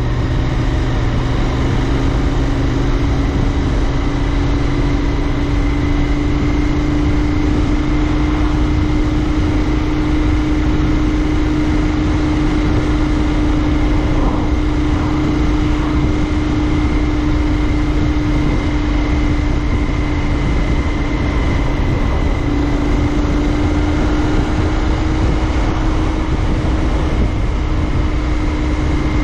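Royal Enfield Interceptor 650's parallel-twin engine running at a steady cruise under way, its note rising slightly over the first few seconds and then holding even, over low wind rumble on the microphone.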